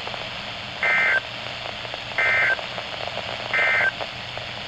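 Weather radio sounding the three short data bursts of the EAS/SAME end-of-message code, a buzzy two-tone warble heard three times about a second and a half apart, with steady radio hiss between them. The bursts signal the end of the alert.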